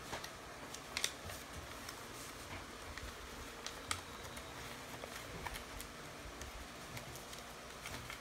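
A sheet of paper being folded and creased by hand on a glass-topped table: scattered soft rustles and sharp crackles and taps, the loudest about a second in and near four seconds, over the steady hum of an electric fan.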